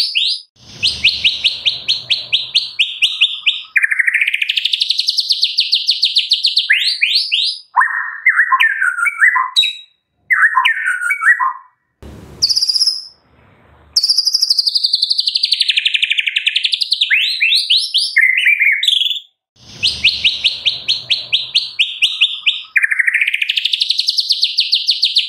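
White-rumped shama (murai batu) singing a song packed with cililin and canary-style phrases: fast trills of rapidly repeated high notes alternating with short, varied warbled phrases, with a brief break about halfway.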